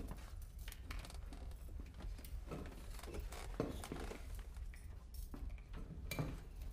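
Steady low hum of a submarine's interior machinery, with scattered rustling, shuffling and small clicks of men moving about in the cramped space.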